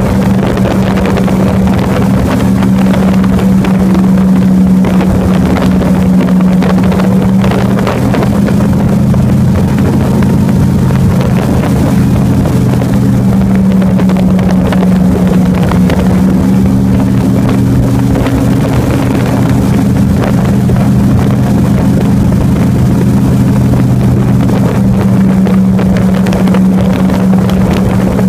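Airboat's engine and big pusher propeller running steadily at cruising speed, loud, its pitch wavering only slightly.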